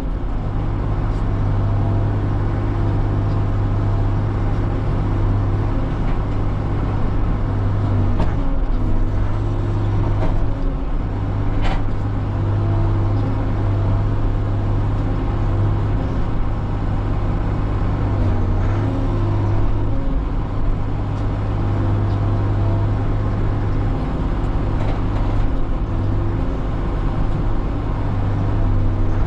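Bobcat E40 mini excavator's diesel engine running steadily under load while digging, its tone shifting a little as the hydraulics are worked. A few sharp knocks cut through, around eight and twelve seconds in.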